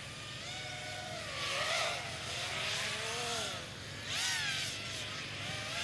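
FPV racing quadcopters' motors and propellers whining, the pitch swooping up and down as the throttle changes, with a sharp rise and fall about four seconds in.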